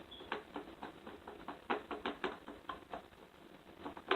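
A utensil stirring glue and sugar together in a container, clicking and tapping irregularly against its sides, several times a second, with one sharper tap near the end.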